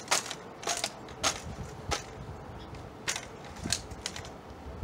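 Sharp slaps and clacks, about seven in four seconds, as hands strike the all-plastic Daisy Winchester M14 CO2 rifle during drill movements, bringing it from the shoulder across the chest and down to the side.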